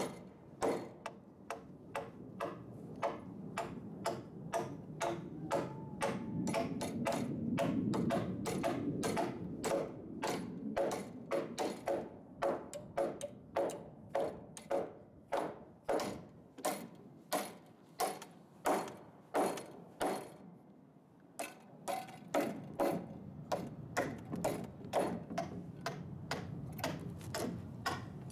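Hammer blows driving nails into a wooden roof rafter frame, a steady run of sharp strikes about two a second, with a brief pause about two-thirds of the way through.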